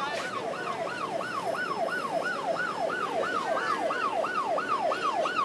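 Police vehicle siren on a fast yelp, its pitch sweeping up and down about three times a second, growing slightly louder as the vehicles approach.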